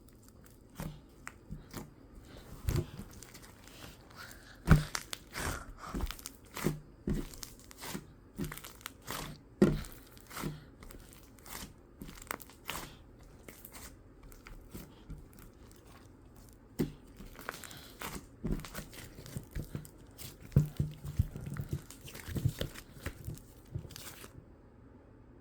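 Slime being squeezed and pressed by hand, giving irregular crackles, pops and squelchy crunches.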